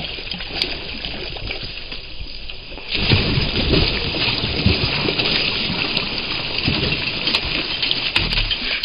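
A lurcher splashing and thrashing in a shallow stream as it struggles with a muskrat in the water. The splashing gets heavier about three seconds in.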